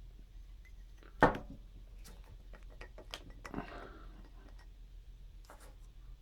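Glass aftershave bottle and its packaging being handled: a sharp knock about a second in, then a run of small clicks and a brief rustle.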